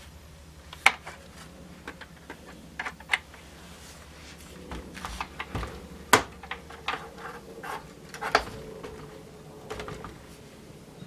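Irregular clicks and knocks of the Panasonic RS-466S boombox's switches and controls being worked, over a low steady hum.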